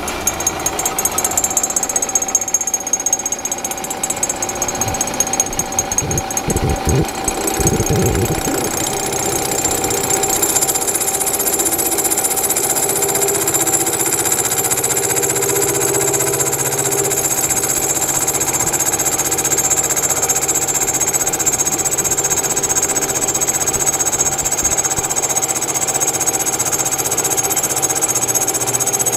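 Milling machine's cutter face-milling the cast-iron flange of a turbo housing. It is surfacing a warped flange. The cut is uneven and pulsing for the first eight seconds or so, then settles into a steadier cutting sound.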